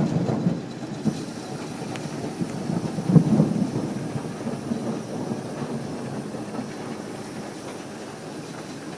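Thunder rumbling and rolling on, swelling again about three seconds in, then slowly dying away.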